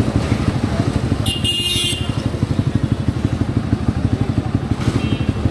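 Motorcycle engine running with a steady, rapid low throb, heard from the rider's seat as the bike rolls through traffic. A short high-pitched horn beep sounds about a second and a half in.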